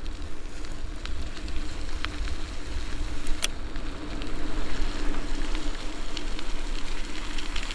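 E-bike riding uphill: tyre noise with a crackling hiss, wind rumble on the microphone and a steady low hum, with scattered small ticks and one sharp click about three and a half seconds in.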